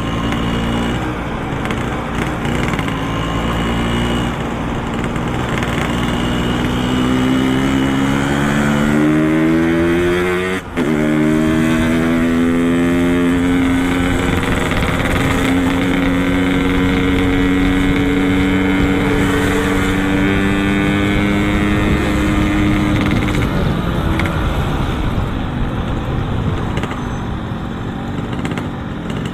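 Yamaha RX-King's two-stroke single-cylinder engine through a Boban C33 aftermarket exhaust, under way: the revs climb for several seconds, there is a quick gear change about ten seconds in, and then it holds a steady pitch before easing off near the end.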